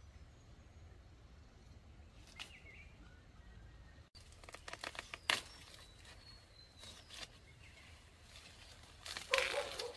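Dry corn stalks and leaves rustling and crackling as ears of corn are picked by hand, with a cluster of sharp snaps about a second after the midpoint's start and the loudest crackle near the end. A bird chirps faintly once before that.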